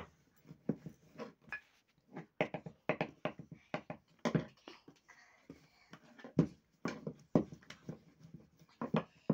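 Hands slapping and patting roti dough on a wooden board: irregular short slaps, several a second in bursts, with brief pauses between.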